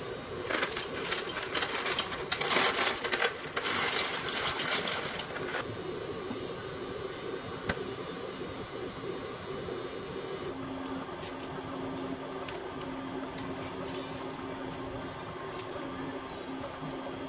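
Dry penne pasta poured from a cardboard box into a pot of boiling water, the pieces rattling and clattering for about five seconds. The water then bubbles more softly, and from about ten seconds in a steady low hum runs on.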